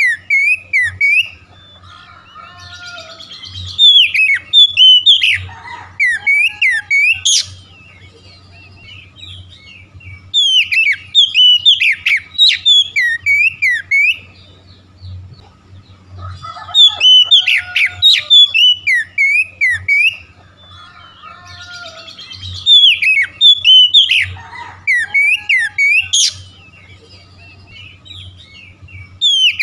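Oriental magpie-robin (kacer) singing loud bursts of fast, varied whistled phrases, each burst lasting a few seconds and coming back about every six seconds, with quieter gaps between.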